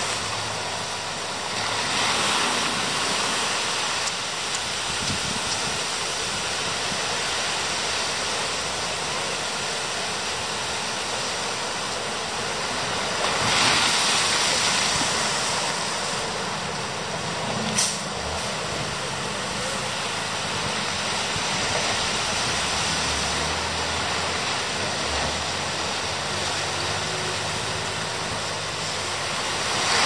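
Steady wash of ocean surf on a beach, swelling louder about 2 seconds in and again around 14 seconds, with one sharp click just before 18 seconds.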